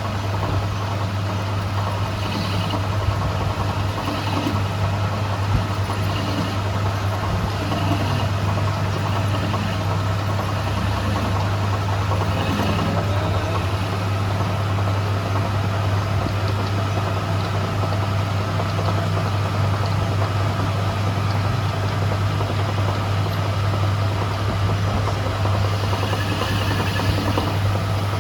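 A machine running with a steady low hum, with a few faint short higher-pitched sounds over it.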